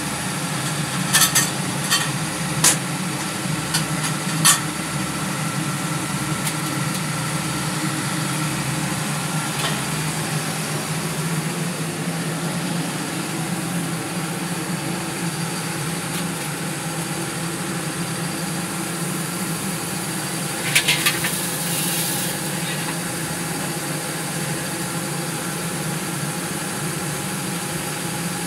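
Mini rice sheller machine running steadily, belt-driven by a 20 hp electric motor, with a constant mechanical hum. A few sharp knocks come in the first five seconds, and a quick rattle of clicks about two-thirds of the way through.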